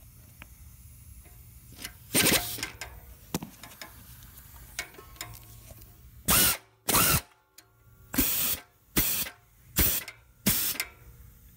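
Hand ratchet turning exhaust flange nuts loose on a long socket extension, its pawl clicking in short bursts on the back-swings: once about two seconds in, then six times in quick succession, roughly one a second, in the second half.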